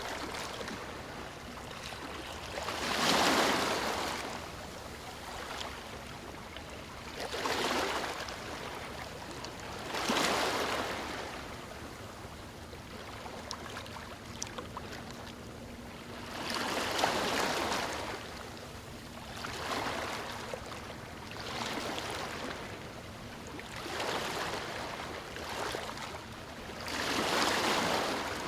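Calm sea waves breaking and washing up a sandy beach: about eight gentle surges of surf, each swelling and fading over a second or two, over a steady hiss of water.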